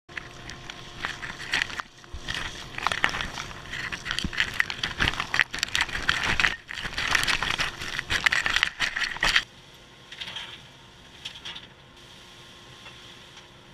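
Dry wood shavings crackling, rustling and rattling as a cyclone dust collector's hose sucks them up right beside the microphone, over the collector's steady hum. About nine and a half seconds in the crackling stops and only the fainter steady rush of the running collector remains, with a few light rustles.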